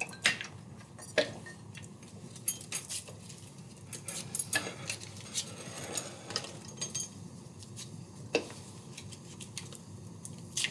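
Alka-Seltzer tablets being torn out of their foil packets and dropped into glass flasks: irregular crinkles, clicks and light clinks.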